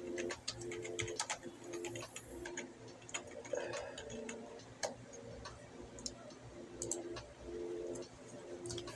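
Eating sounds: irregular sharp clicks and taps of cutlery on a plate, with mouth and chewing noises. Underneath is a soft melody of held notes.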